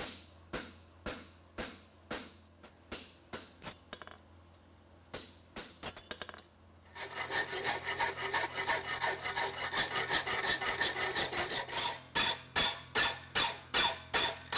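Light hammer blows on a cold steel horseshoe on the anvil, about two a second, then a few more before a pause. About seven seconds in, a metal file rasps across the horseshoe clamped in a vise: quick back-and-forth strokes, then steadier strokes about twice a second.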